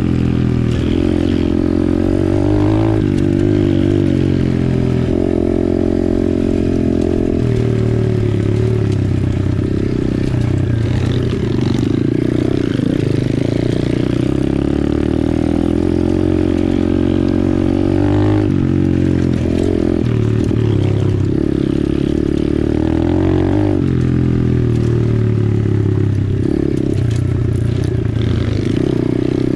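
Apollo RFZ 125cc pit bike's single-cylinder four-stroke engine running under way, its pitch rising and falling over and over as the rider works the throttle and shifts gears.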